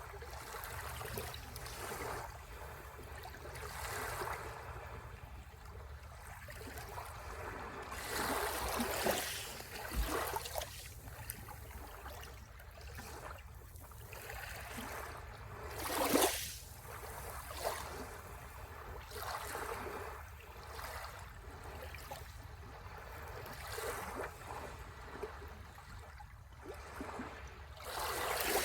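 Sea waves washing onto the shore in repeated surges that rise and fall every few seconds, over a steady low rumble. The biggest surges come about a third of the way in, just past halfway, and again at the very end.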